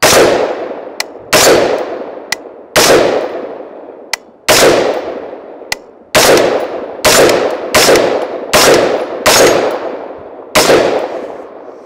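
Ten semi-automatic shots from a 5.56 AR-15 Dissipator rifle with a 16-inch barrel and rifle-length gas system, each a sharp crack with a ringing tail. The first few come about a second and a half apart, the rest quicker, under a second apart. Faint sharp ticks fall between some of the early shots.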